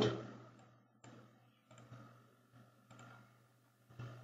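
Faint computer mouse clicks, a few scattered through the stretch, over quiet room tone with a low steady hum.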